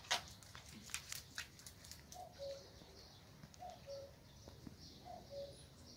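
Common cuckoo calling its two-note "cu-ckoo", the second note lower, faint and repeated three times about a second and a half apart.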